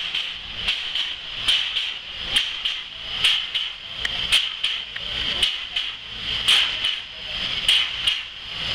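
A standing TKt48 steam tank locomotive hissing steam, with a regular sharp beat about once a second over the steady hiss.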